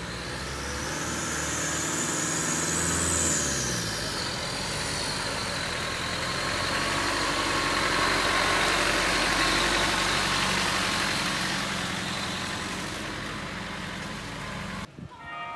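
Land Rover Defender engine running under load as it drives through muddy water, revs rising then dropping about three seconds in, with a broad rush of engine, tyre and splashing noise that is loudest as the vehicle passes close. Music cuts in near the end.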